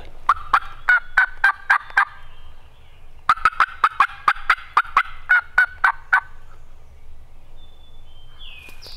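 Turkey mouth call blown by a hunter, giving two runs of loud, evenly spaced hen-turkey yelps, about four or five notes a second, with a short pause between the runs. The calling is meant to keep nearby gobblers worked up.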